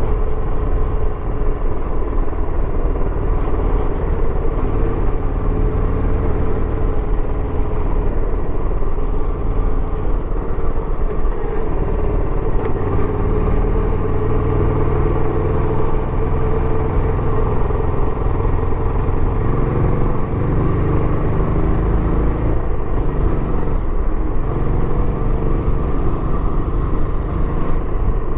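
Royal Enfield Bullet 350X single-cylinder engine running through its stock exhaust while riding, held fairly steady with only small changes in pitch.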